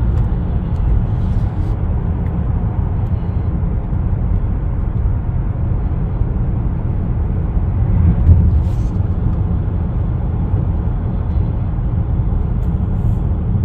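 A 10th-generation Honda Accord driving, with a steady low road and engine rumble and a brief louder swell about eight seconds in.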